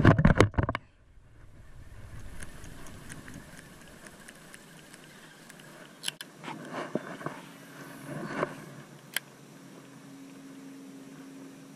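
Knocks and rubbing from a fishing rod and baitcasting reel handled against a body-worn camera: a loud cluster of hits at the start and more about six to nine seconds in, with light ticks between. A faint steady hum sets in during the last few seconds.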